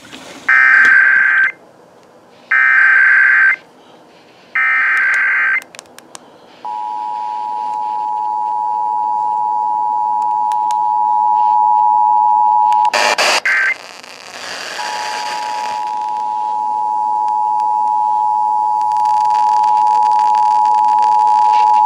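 Emergency Alert System test off broadcast radio: three short bursts of warbling digital SAME header data, then the steady two-tone EAS attention signal (853 and 960 Hz). The attention signal breaks off about thirteen seconds in with a burst of noise and a brief data chirp. It then comes back, growing louder, for about seven more seconds.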